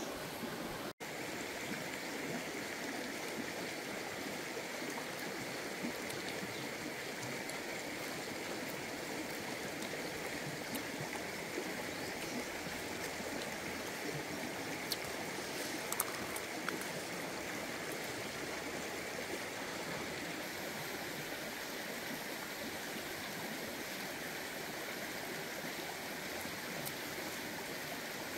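Steady rushing of a shallow stream running over rocks, with a few faint taps and clicks in the middle. The sound cuts out for an instant about a second in.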